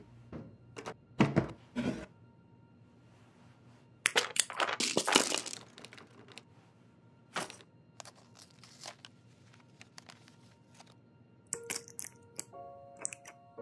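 Pill blister packs and a first-aid kit being handled: a few knocks near the start, a burst of crinkling and cracking foil about four seconds in, then scattered small clicks as pills are handled.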